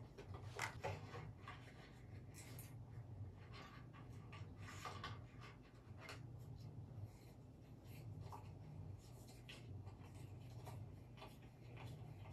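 Faint, irregular scratching, rustling and small clicks of something being handled, over a low steady hum.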